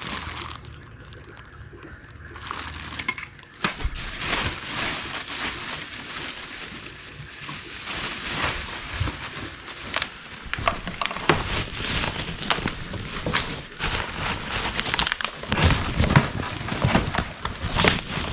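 Packaging rustling and crinkling by hand, with irregular clicks and clinks of small parts being handled.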